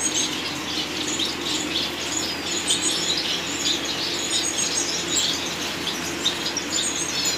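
Many caged finches chirping together: a dense, overlapping chatter of short, high calls, over a steady low hum.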